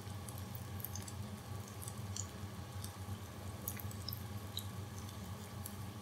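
Breaded chicken nuggets deep-frying in hot oil: a steady frying sizzle with scattered small crackles and pops, over a low steady hum.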